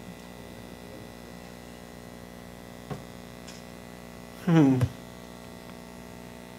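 Steady electrical mains hum from the sound system, with a faint click near the middle. A short voice sound that falls in pitch, lasting under half a second, comes about four and a half seconds in and is the loudest thing heard.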